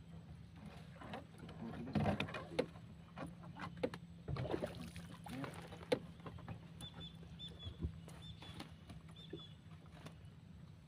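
Knocks, taps and rustles in a wooden boat as a small fish is hauled in on a handline and lifted aboard, the sharpest knocks about two and six seconds in. Later a bird gives a run of short high chirps.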